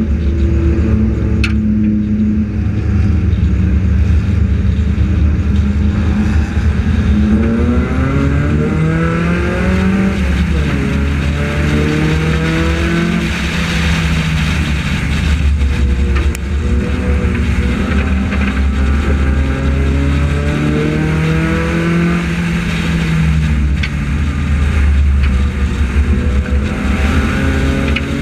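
Front-wheel-drive compact race car's four-cylinder engine heard on board at racing speed. Its pitch climbs as it accelerates and falls as it lifts off, twice over, and it is rising again near the end.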